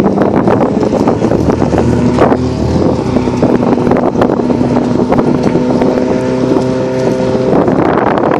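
Two 2-litre VW Golf engines, a non-turbo Mk1 and a turbocharged Mk7 GTI, running at raised revs side by side on a drag-strip start line, waiting for the launch. The engine notes hold steady with a few shifts in pitch, and step up near the end.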